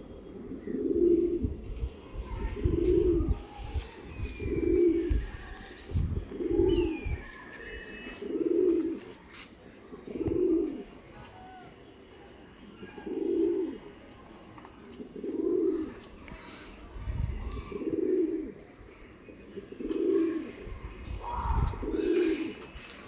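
Domestic pigeon cooing over and over, a low coo about every two seconds, with a short pause about halfway through.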